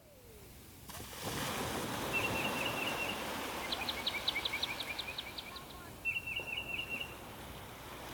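A songbird calling over a steady rushing outdoor background: a quick repeated phrase of short notes, then a run of about nine clear, evenly spaced higher notes, then the quick phrase again.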